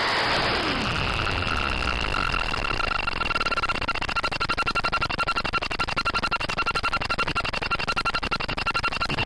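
Synthesized electronic noise from a VCV Rack 2 software modular synthesizer: two steady high tones over a hiss, with a falling sweep at the start. About four seconds in, the sound turns into a rapid, even pulsing.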